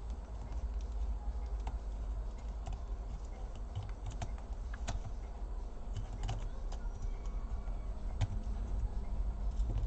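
Scattered light clicks and taps from hands and small tools working on the opened laptop's parts, a few a second and irregular, over a steady low hum.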